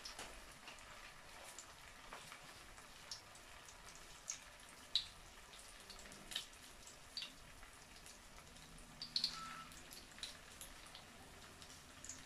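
Fish cake frying in shallow oil in a non-stick pan: a faint sizzle with scattered sharp pops and crackles, a quick cluster of them a little past halfway.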